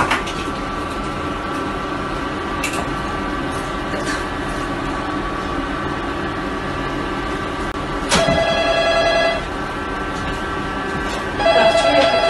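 A steady background hum, with a loud ringing tone sounding twice, each ring lasting about a second, about three seconds apart, near the end.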